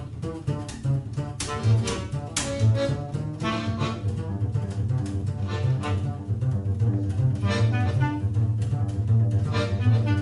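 Live acoustic instrumental music from a small ensemble: a double bass plays a prominent walking low line under a melody of sharp, clearly attacked notes.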